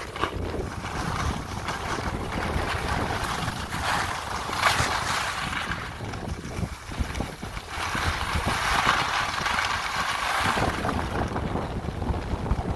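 Wind buffeting the microphone of a camera moving downhill on skis, over the hiss and scrape of skis sliding and turning on spring snow, which swells several times with the turns.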